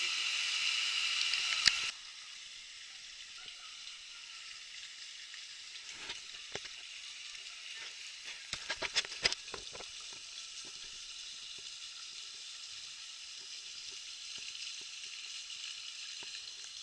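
Jungle river ambience during river tubing: a steady high hiss, louder for the first couple of seconds until it cuts off suddenly, then quieter, with a few knocks and clicks about halfway through.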